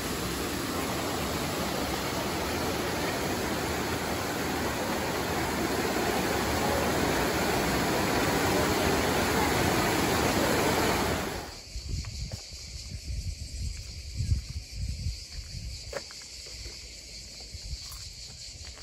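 Trevi Fountain's water cascades rushing steadily into the pool. About two-thirds of the way through, the sound cuts off abruptly to a much quieter open-air ambience, with irregular low wind rumbles on the microphone.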